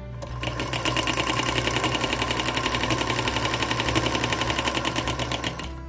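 Singer Featherweight sewing machine with a ruffler foot attached, running fast and steadily as it gathers fabric into a loose ruffle: a rapid, even clatter of needle strokes. It starts just after the beginning and stops shortly before the end.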